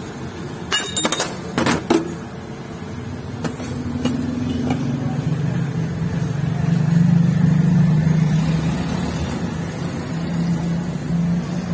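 Sharp metal clinks about a second in and again near two seconds, from a motorcycle crankshaft knocking against its steel V-block stand as it is set up under a dial indicator. From about four seconds in a steady low engine-like hum builds, loudest past the middle, and holds.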